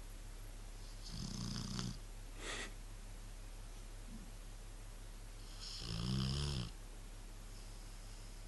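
Rottweiler snoring in its sleep: two snores about five seconds apart, each lasting under a second, with a short breath just after the first.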